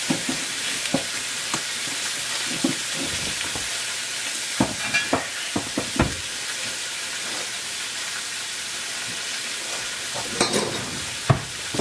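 Squid strips searing in a thin film of hot olive oil in a stainless steel skillet: a steady sizzle with scattered crackles and pops, a cluster about halfway through and another near the end.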